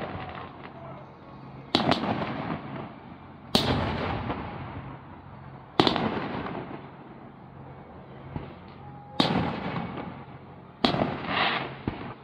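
Aerial firework shells bursting overhead: five loud bangs spaced one and a half to three and a half seconds apart, each followed by a rolling echo that dies away, with a few smaller pops between.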